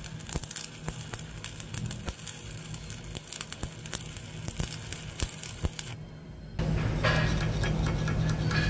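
Stick-welding arc from a 3.2 mm E7016 electrode crackling steadily while laying a vertical fillet weld pass. About six seconds in, the arc crackle stops and a louder steady low hum with scattered clicks takes over.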